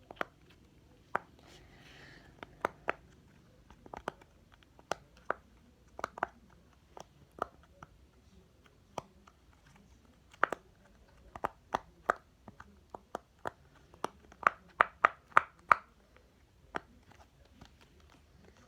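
Silicone pop-it fidget toy being pressed, its bubbles popping in sharp, irregular clicks, with a quick run of pops about three quarters of the way through.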